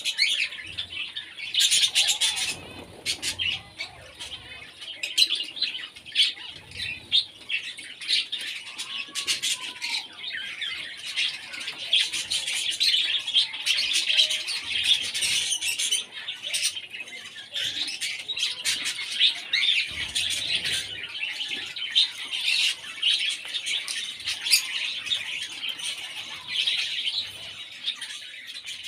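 Many small cage birds chirping and chattering in a dense, continuous stream of short high calls, in an aviary.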